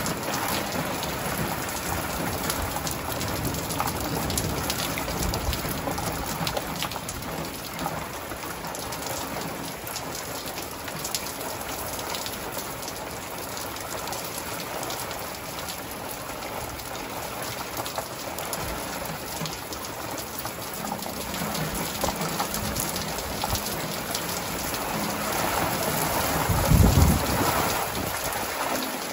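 Steady rain falling during a thunderstorm, with distant thunder rumbling a few seconds in. A louder roll of thunder builds and peaks near the end.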